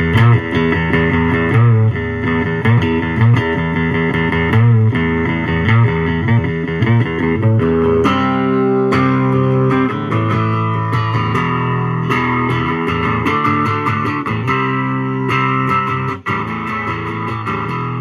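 Electric guitar played through an amplifier. A short phrase of picked notes repeats for the first half, then gives way to longer held notes, with a brief break near the end.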